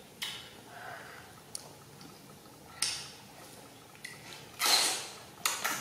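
Close-up eating of juicy green oranges: a few wet bites and chewing clicks, with a louder slurping rush about three-quarters of the way through and a shorter one just after.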